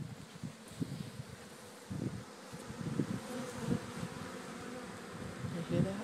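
A honeybee swarm buzzing around a wooden hive as it is moved in, the hum swelling and fading as bees fly close.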